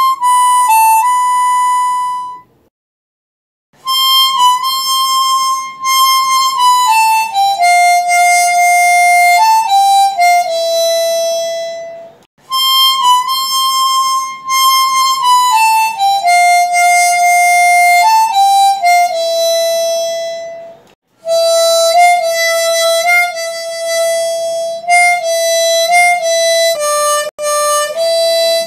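A 10-hole Hohner diatonic harmonica in C plays a slow melody one note at a time. It comes in four phrases split by short breaks, each falling from the high blow and draw notes around hole 7 down to a held hole 5 blow note.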